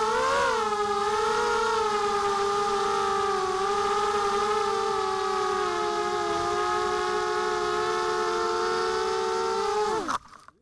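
Minion 220 mini quadcopter's brushless motors and propellers whining, heard from its onboard camera. The pitch rises briefly about half a second in and then holds steady; near the end the whine drops sharply and stops as the quad comes down into long grass and the motors spin down.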